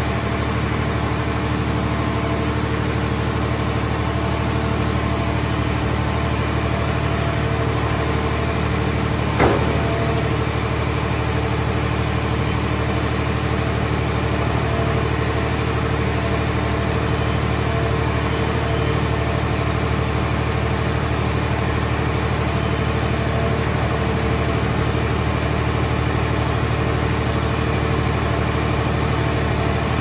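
Hydraulic power unit of a scrap car shell baler running with a steady drone as its grab crane handles a car shell, with one sharp knock about nine seconds in.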